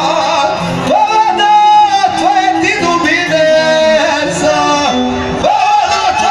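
Live Balkan folk music: a male vocalist sings through a microphone and PA, holding long notes with slides between them, accompanied by violin and a long-necked lute.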